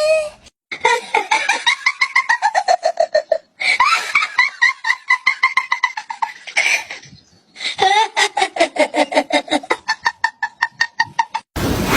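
A high-pitched voice making rapid, laugh-like pulsed calls in three long runs, each sliding down in pitch.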